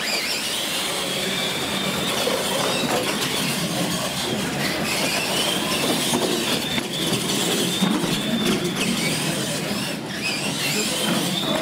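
Two electric radio-controlled monster trucks racing, their motors and gears giving a high whine that rises and falls with the throttle over the hiss of tyres on a concrete floor. The whine starts suddenly as they launch.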